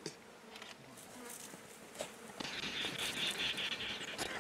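Insects buzzing: a steady, high-pitched buzz comes in a little past halfway and holds, with a few faint clicks and ticks before it.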